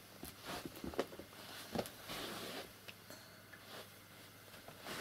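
Faint shuffling of felt boots on a rug, with a few light knocks about one and two seconds in.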